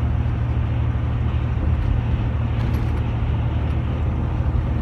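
Steady low drone of engine and tyre noise inside a vehicle cruising at highway speed.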